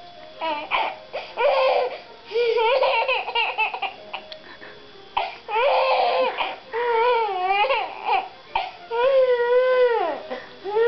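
Baby laughing in bursts, then letting out long high-pitched squeals that rise and fall in pitch over the last few seconds.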